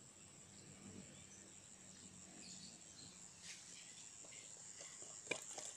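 Near silence: a faint, steady high-pitched insect trill, as of crickets in the rice field, with a few light clicks near the end.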